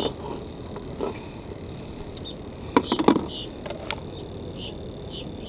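Plastic bait bucket and its lid being handled, with a short cluster of sharp clattering knocks about three seconds in, over a steady background hiss and repeated faint, high squeaky chirps.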